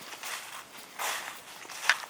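Footsteps of people walking, a few uneven steps, with a sharper short scrape or click near the end.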